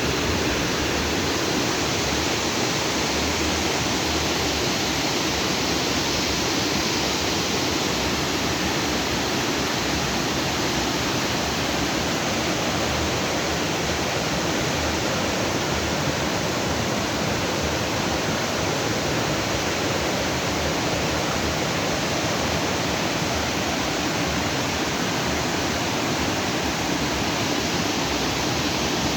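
A rocky stream, the outflow of a lagoon, rushing steadily over and between rocks, an unbroken even rush of water.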